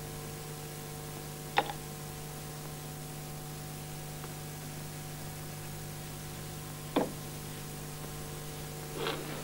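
Steady hiss and mains hum of an old VHS film soundtrack, with three short sharp knocks: about one and a half seconds in, about seven seconds in, and near the end.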